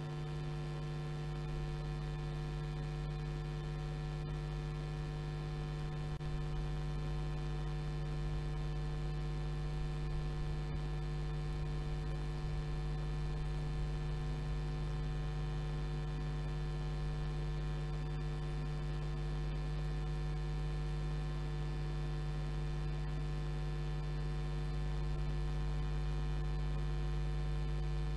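Steady electrical mains hum, with a strong low drone and a stack of fainter buzzing overtones above it. It does not change in pitch or level, and no track or engine sound is heard.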